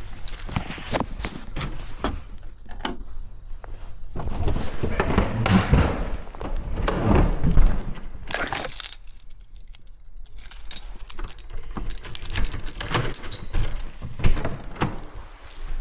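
Keys jangling and clicking, among irregular knocks and handling noise.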